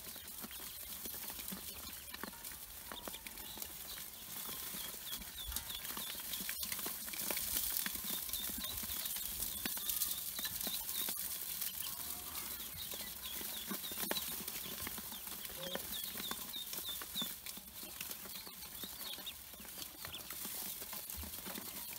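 A crowd of Pekin ducklings peeping continuously in short, high notes, with light tapping and scrabbling of their feet on the steel bowl they are packed into.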